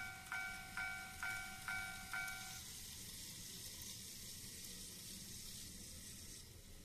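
Japanese-style level-crossing warning bell ringing at about two strikes a second, each strike a ringing three-tone chime. It stops about two and a half seconds in. A steady high hiss follows until near the end.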